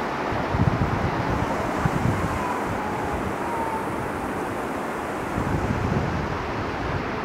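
A fast-flowing river rushing over rocks, a steady roar of water, with wind buffeting the microphone in gusts.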